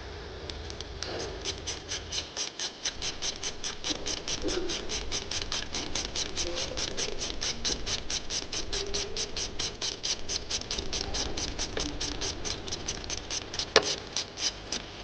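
A bicycle freewheel's ratchet clicking evenly, about four or five clicks a second, as the wheel or cranks turn. One louder knock comes near the end.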